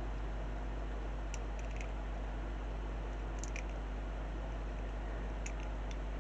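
Faint, light clicks of plastic model-kit parts being handled and pressed together, a few small ticks in three clusters over a steady background hiss and hum.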